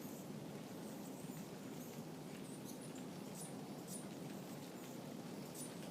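Steady roar of ocean surf. Over it, a hummingbird gives short, high squeaky chirps several times, clustered from about midway through and again near the end.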